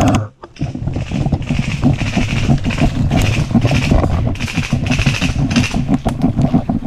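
Quick footsteps and rustling gear of an airsoft player on the move, a dense run of thuds and knocks with a pulse of hiss about twice a second.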